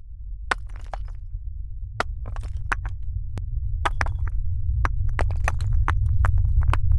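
A deep rumble that swells steadily louder, with irregular sharp cracks and clicks over it that come more and more often.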